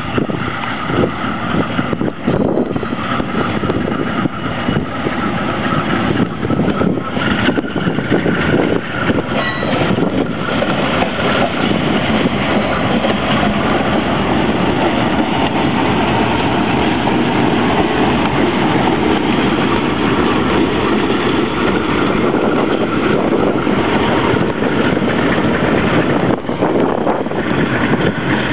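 Banking diesel locomotives running slowly past, engines running steadily, with heavy wind noise on the microphone.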